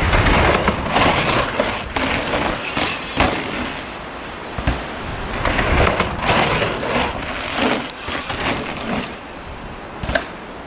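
Downhill mountain bike running over a rough trail: rushing tyre noise over dirt and rock that rises and falls, with sharp knocks and rattles from the bike a few times.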